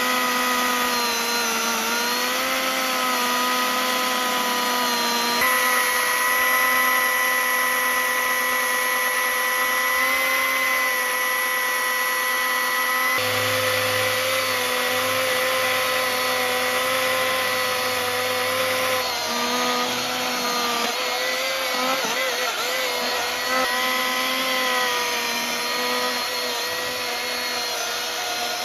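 Snowmobile engine running at steady high revs, a continuous droning whine that wavers slightly in pitch and changes tone abruptly a few times.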